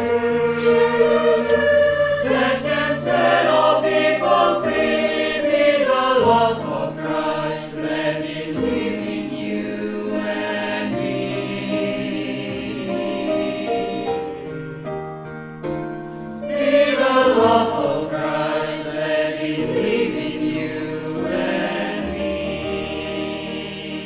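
Virtual choir singing a Christian song. It eases into a quieter passage about two-thirds through, swells again, then starts to fall away near the end.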